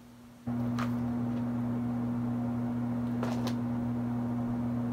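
Steady low electrical hum of two tones that starts abruptly about half a second in, with a couple of faint clicks.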